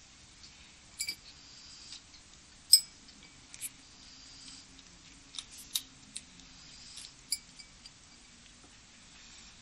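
Tabby kitten eating dry kibble from a porcelain plate: irregular sharp clinks of kibble, teeth and paw against the dish, each ringing briefly. The loudest clink comes nearly three seconds in.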